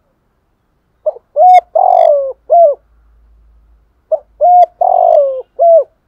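Decoy spotted dove cooing: two phrases of four notes, about a second and a half apart. The third note of each is long and falls in pitch.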